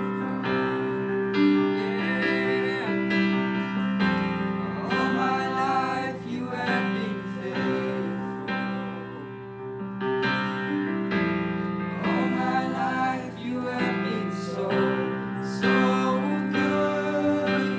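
Song with piano chords and a voice singing over them.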